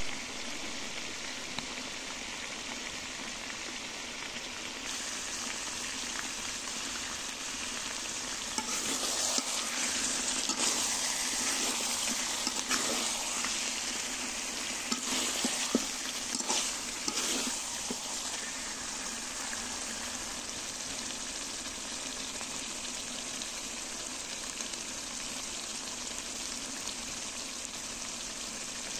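Duck curry frying in oil in a pan, with a steady sizzle. Partway through, the sizzle grows louder for several seconds as the pieces are stirred with a spatula, with a few sharp scrapes and clicks, then settles back.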